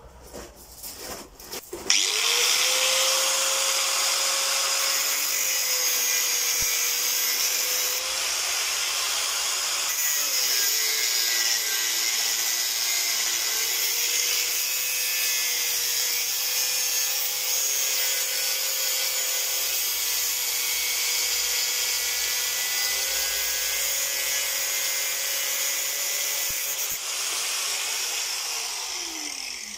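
Angle grinder with an abrasive cut-off disc cutting through a steel car coil spring, throwing sparks. It starts after a few knocks about two seconds in and runs steadily with a loud hiss, its pitch dipping and wavering under load. Near the end it spins down with a falling pitch.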